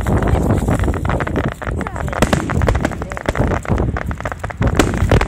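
Aerial firework shells bursting: dense crackling over a heavy low rumble of booms, with several sharper bangs a little past two seconds in and again near the end.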